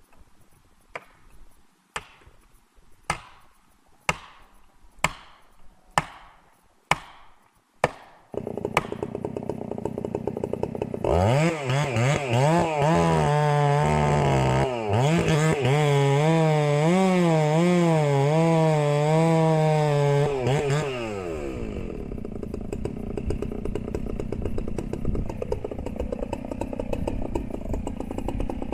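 About eight sharp knocks, roughly one a second. Then a chainsaw runs: a few seconds later it revs high and cuts under load for about ten seconds, its pitch wavering, then drops back to a lower, steadier run before revving again at the very end.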